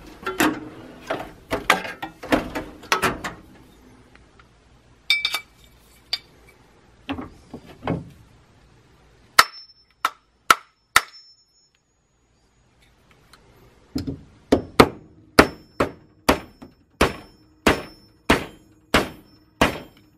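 Hammer tapping a screwdriver used as a punch to drive the old ball bearing out of a Singer PA 10-8 sewing machine motor housing. Sharp metallic taps, some with a short ring: quick clusters at first, a pause of a few seconds about halfway, then steady taps about every two-thirds of a second.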